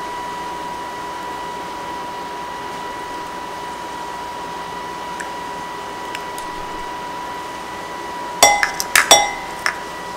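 A utensil clinking sharply against a bowl about five times in quick succession near the end, as sour cream is scooped and knocked off into the chicken filling. A steady high-pitched whine runs underneath.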